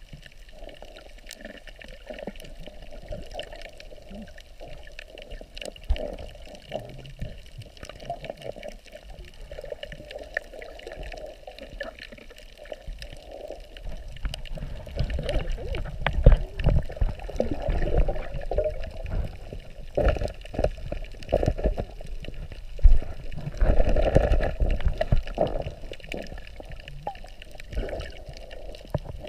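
Muffled underwater water noise picked up by a submerged camera: continuous sloshing and bubbling, with heavier low rumbling surges from about halfway through until near the end.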